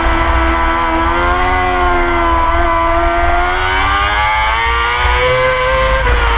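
Moto2 race bike's Honda 600 cc inline-four engine at speed, heard from the onboard camera: the engine note holds fairly low and steady through a long leaned-over corner, sags a little about four seconds in, then climbs as the throttle is picked up near the end.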